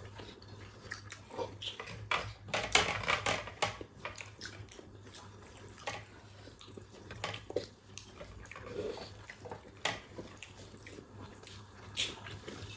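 A person eating on camera: wet chewing and mouth smacks, with irregular sharp clicks from utensils or a plate.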